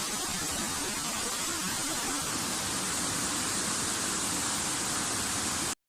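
Waterfall: a steady rush of falling water, which cuts off abruptly near the end.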